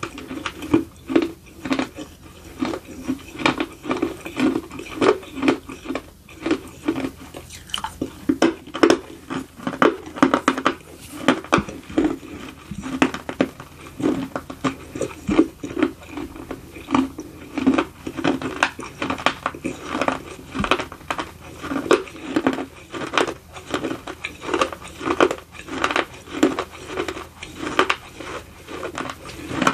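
Close-up chewing of a bitten-off piece of a miniature baked clay pot (edible clay): a steady run of dry, gritty crunches, about two a second.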